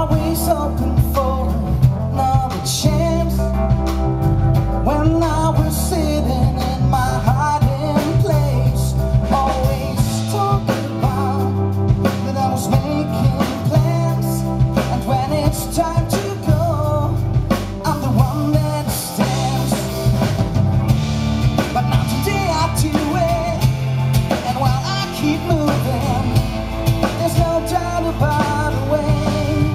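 A live pop band playing a song: a male singer over strummed acoustic guitar, keyboard, electric bass and drums.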